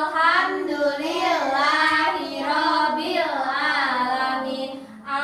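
Young children singing together in unison, a continuous melodic line with long held notes.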